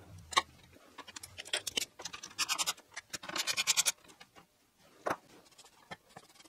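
Hand tools clicking and clinking on a workbench, with two short runs of rapid, even clicking from a ratchet being worked on the screws of a truck's gauge cluster. There is a single sharp click near the end.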